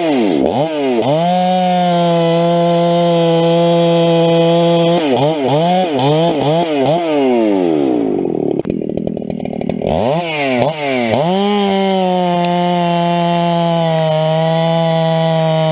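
Two-stroke chainsaw running at high revs, its engine note dropping and climbing again several times as it cuts through wood. About eight seconds in the revs fall low for a couple of seconds before the saw winds back up to full throttle.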